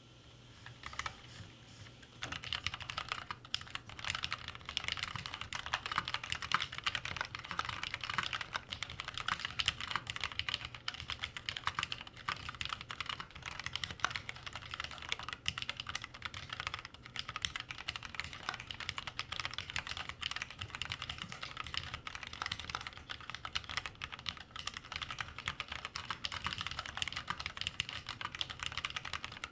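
Continuous fast typing on a mechanical keyboard with Kailh BOX Black switches, which are linear: a dense, steady stream of key clacks that starts about a second in.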